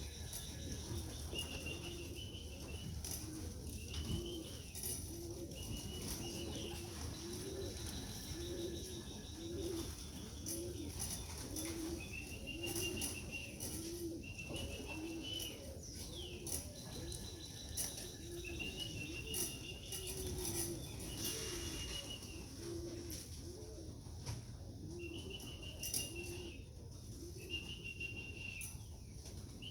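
Pigeons cooing in a steady repeating series of low calls, about one a second, with scattered wing flaps and higher short whistle-like bird calls over it.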